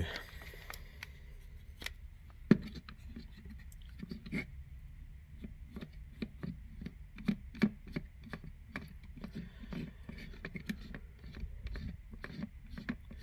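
Light, irregular clicks and rubbing of hands working small plastic and metal parts: a threaded screw being turned by hand into a new plastic worm-gear housing for a Stanley garage door opener. One sharper click comes about two and a half seconds in.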